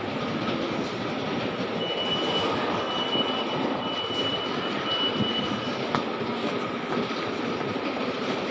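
Steady din of a busy underground railway station concourse, with a thin high whine held from about two to six seconds in and one sharp click shortly after.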